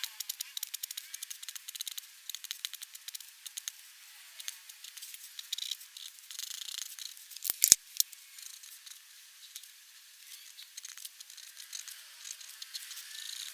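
Fine-tip black pigment pen scratching and tapping on paper in rapid short strokes and ticks, as in hatching or stippling ink work, thin and trebly. Two sharp clicks about seven and a half seconds in are the loudest sounds.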